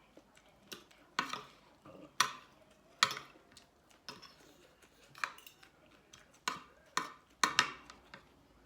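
Eating utensils clinking against a dish: about nine sharp clinks at irregular intervals, a few closer together near the end.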